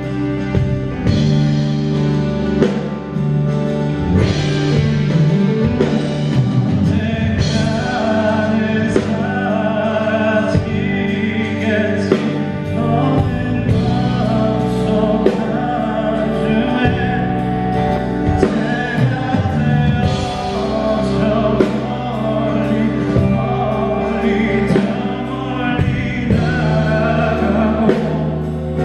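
Live concert music: a male singer performing a song with band accompaniment.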